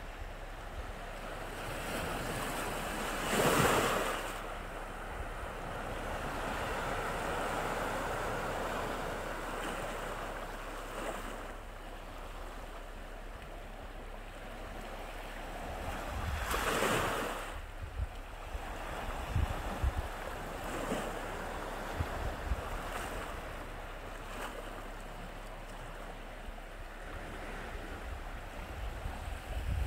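Sea waves washing onto the shore, with louder breaks about three seconds in and again about halfway through. Wind buffets the microphone in short gusts through the second half.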